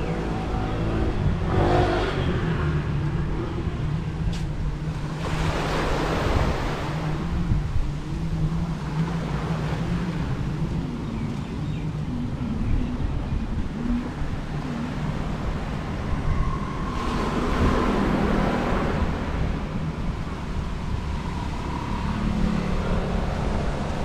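Road traffic: cars and motorbikes driving past one after another, over a steady low engine hum. Each pass swells up and fades away, three times.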